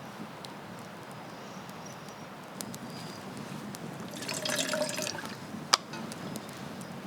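Water dripping and trickling, with a louder stretch about four seconds in and one sharp click near the end.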